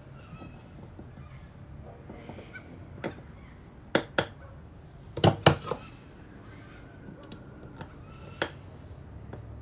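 Screwdriver working the screws on the metal automatic choke housing of a Solex 34 PICT-3 carburettor as the choke is removed: a handful of sharp metal clicks, the loudest two close together about halfway through.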